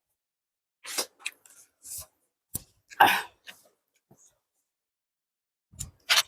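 Close-miked eating sounds from a person eating biryani and chicken curry: a string of short, wet mouth and chewing noises. The loudest is a harsher mouth or throat noise about three seconds in, and there is another cluster near the end.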